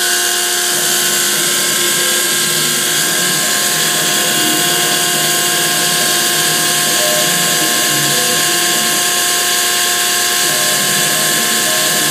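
CNC-converted Grizzly G0704 mill running its spindle steadily, an end mill cutting Delrin plate. A compressed-air nozzle blowing on the cut adds a strong steady hiss, and several steady whining tones sit underneath.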